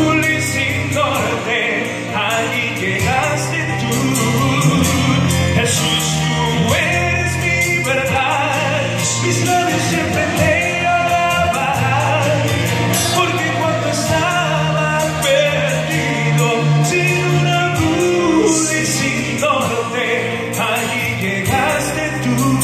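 A man singing a Spanish-language Christian song into a microphone over instrumental accompaniment, with a steady bass line underneath.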